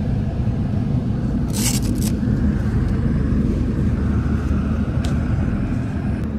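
Steady low engine and road rumble heard from inside a coach bus. A brief crackle of handling noise comes about one and a half seconds in.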